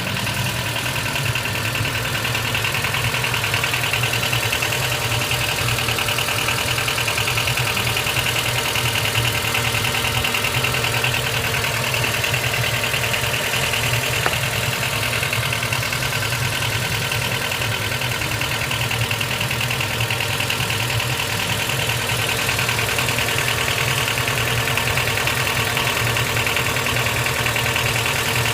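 Engine of a 17-year-old Honda Step WGN (RG2) idling steadily, with the abnormal engine noise (異音) that the owner is recording.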